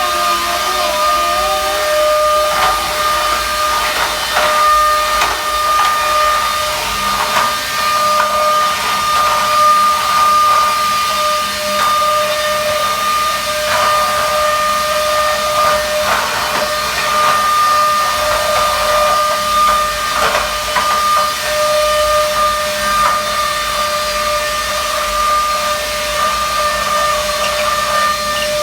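Rechargeable cordless vacuum cleaner running with its floor-brush attachment: a steady high motor whine over rushing air, with short scattered knocks and scrapes.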